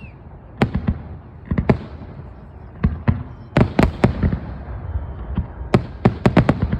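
Aerial firework shells bursting in an irregular run of sharp bangs, each trailing off in an echoing rumble, with quick clusters of reports about three and a half seconds in and again near the end.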